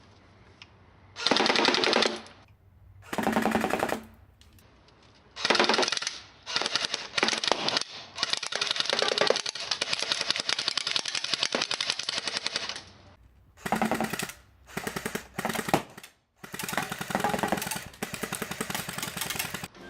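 Electric airsoft Tommy gun firing 6 mm plastic BBs on full auto, a rapid rattle in bursts: several short bursts, a long burst of about five seconds in the middle, then more short bursts and a final burst of about three seconds near the end.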